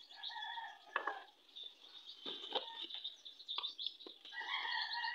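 Several sharp knocks and clinks as a drinking glass and a thermos flask are handled on a table, with birds chirping in the background.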